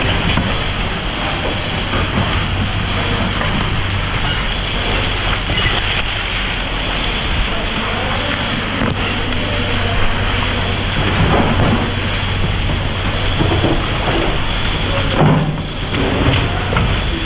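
Fire hose nozzle spraying water onto burning debris: a steady, loud rushing hiss of water, with a steady low hum underneath.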